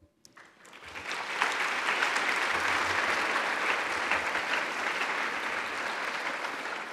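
Audience applauding. The clapping builds up over the first second, holds steady, and eases off a little near the end.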